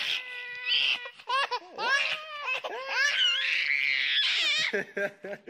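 A baby laughing hard in a string of short bursts, its pitch wavering and climbing to high squeals.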